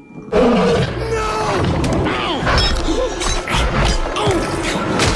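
Dramatic animated-film soundtrack that starts suddenly about a third of a second in: loud music and sound effects with many sliding pitches and repeated sharp hits.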